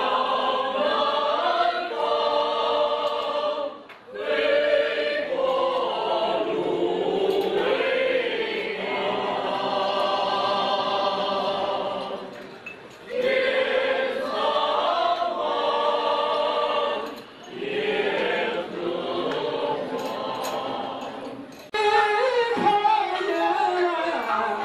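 Mixed choir of women and men singing, long held phrases broken by brief pauses between them. About three seconds before the end it cuts abruptly to a man singing solo into a microphone.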